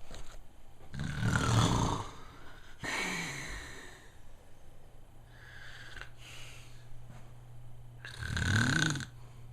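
Snoring: long snores about a second in, near three seconds and near the end, with quieter breathing between.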